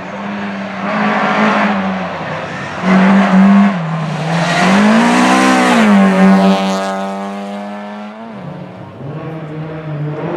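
Rally car engine revving hard under acceleration. Its pitch rises and falls with throttle and gear changes, then drops sharply about eight seconds in.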